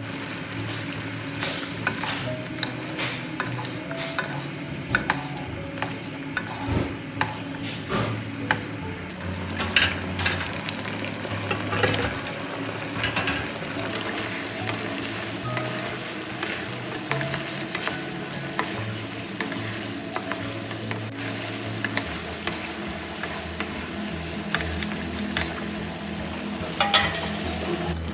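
Wooden spatula stirring chicken wings in a nonstick wok, scraping and clicking against the pan over the steady sizzle and bubbling of the simmering pineapple sauce. A louder knock comes near the end.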